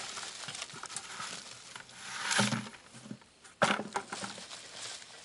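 Dry wood chips and bark rustling and crackling as hands shift them around in a steel tire-rim forge, with a sharp knock about three and a half seconds in.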